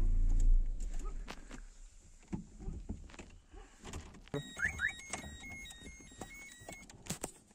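Car engine idling, then shut off about half a second in. After that come clicks and knocks of handling inside the car, and partway through a run of short high electronic beeps at stepping pitches.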